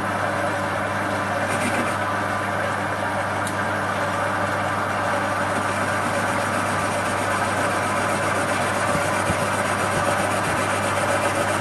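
Small metal lathe running steadily under medium power feed, its tool taking a turning cut along cast aluminium round stock: a constant motor and gear hum with no change in pitch.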